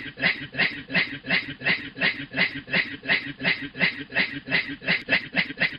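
A man's voice doing a rhythmic 'hue hue' laugh as an imitation of a chugging train, even pulses at about three a second.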